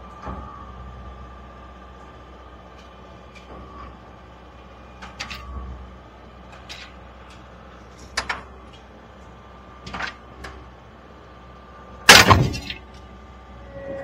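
Skid steer engine running steadily while its bucket strains to pull the engine and transmission out of a stripped 1986 Suburban, with several sharp metal clanks, then one loud metal crash about twelve seconds in as the load and truck body shift.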